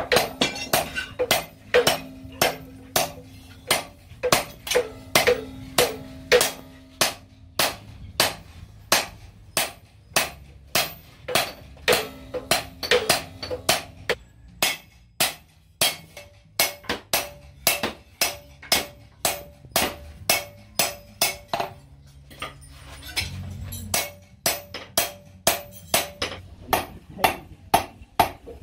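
Hand hammer forging a knife blank held in tongs on a small steel anvil, steady blows about two a second, each with a short metallic ring. The rhythm breaks off briefly twice.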